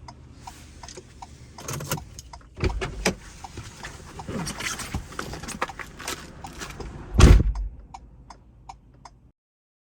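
Handling noises: clicks, rattles and keys jangling, with a heavy thump about seven seconds in, then the sound cuts off suddenly near the end.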